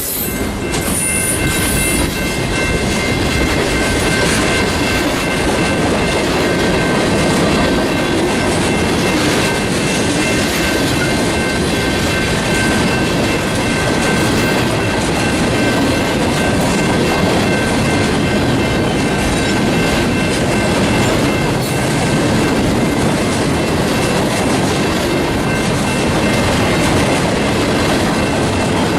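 A train's cars rolling past, steady wheel-on-rail noise with clickety-clack and a few thin, steady high ringing tones from the wheels over the rumble.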